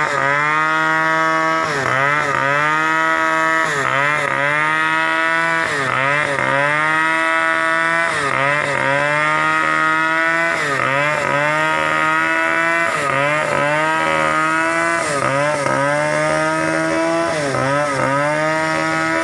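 A small engine running continuously, its pitch dipping sharply and recovering about once a second.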